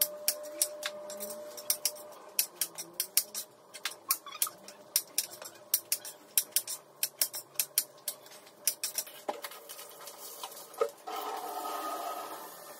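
Kitchen knife chopping vegetables on a cutting board: quick, irregular taps about three to five a second, tailing off after about nine seconds. Near the end comes a brief stretch of rushing, clattering noise.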